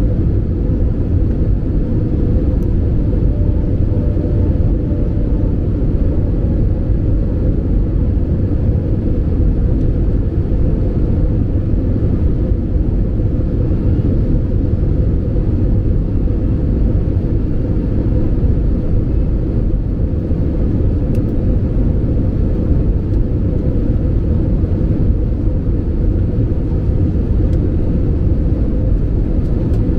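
Steady low rumble of engine and airflow noise inside the cabin of an Airbus A320-family jet airliner on final approach, descending toward the runway.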